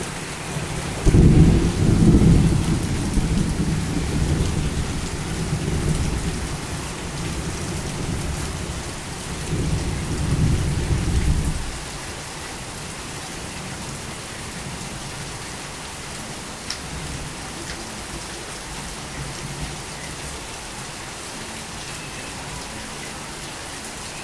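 Torrential rain falling steadily, with a loud low rumble of thunder starting suddenly about a second in, swelling again near the middle and stopping abruptly about halfway through.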